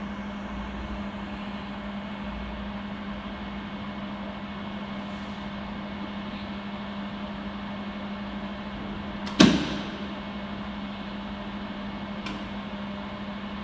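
A jewelry laser welding machine running with a steady hum and a constant low tone. A single sharp snap comes about nine seconds in, and a fainter click follows near the end.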